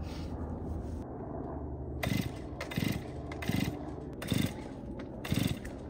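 Stihl gas chainsaw being pull-started: from about two seconds in, five quick pulls on the recoil starter cord, each a short burst of the engine turning over without yet catching.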